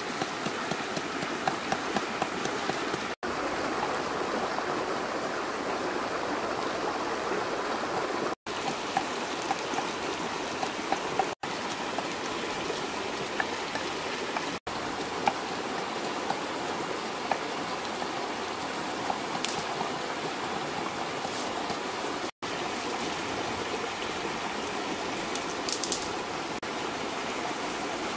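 A steady rushing sound like a flowing stream, with scattered small pops and crackles from the wood fire grilling the catfish on a flat stone.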